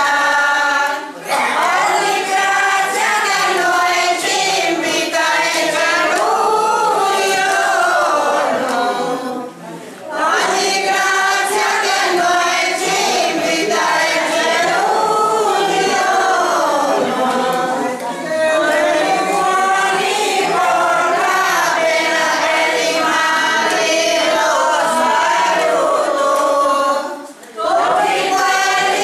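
A group of voices singing a traditional folk song unaccompanied, in long phrases with short breaks about a second in, around ten seconds in and near the end.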